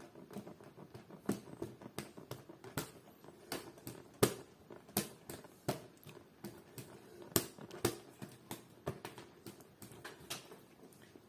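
Folding hand fan with wooden ribs and a fabric leaf, waved fast and batted by a kitten's paws: irregular sharp clacks and flaps, a few each second.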